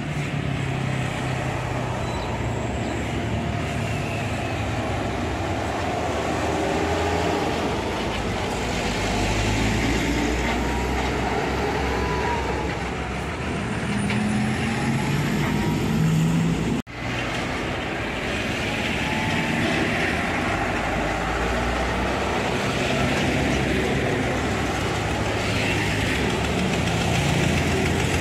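Heavy diesel trucks, among them Hino 500 series trucks, driving past in steady road traffic, with engine noise and tyre rumble throughout. Near the middle an engine note rises and then falls. The sound drops out for an instant just past halfway.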